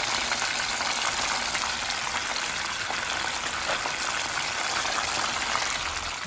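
Battered cod pieces frying in a pan of hot oil: a steady, dense sizzle of bubbling oil.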